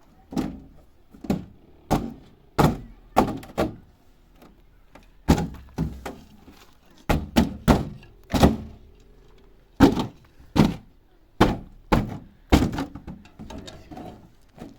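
Repeated dull thuds of hand-struck blows, about twenty of them, irregularly spaced at one or two a second, with a short pause partway through.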